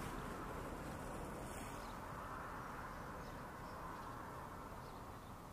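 Faint, steady outdoor background hiss that slowly fades, with a few faint, short bird chirps.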